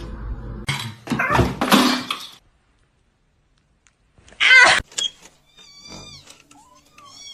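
Domestic cats crying: a loud, harsh, noisy cry about a second in, a short loud burst after a brief dead silence, then a few short meows near the end, with abrupt cuts between them.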